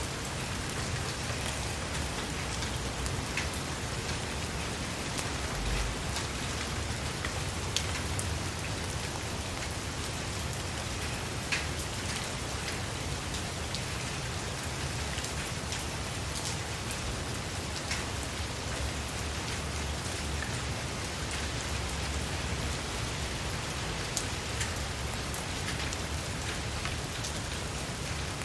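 Steady rain falling on leaves, with scattered sharper drop hits standing out from the even hiss.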